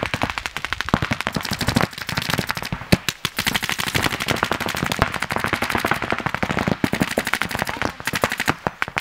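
Paintball markers firing in rapid strings of sharp pops, many shots a second, from more than one marker at once, with brief let-ups.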